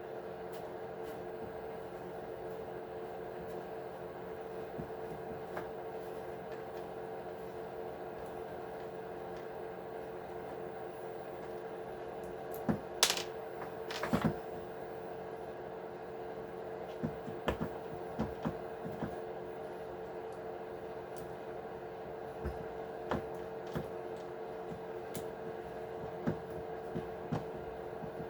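Small clicks and taps of hand tools and plastic and metal parts being handled while an RC truck's axle is taken apart, over a steady hum. Two sharper clacks come about halfway through, then scattered light clicks.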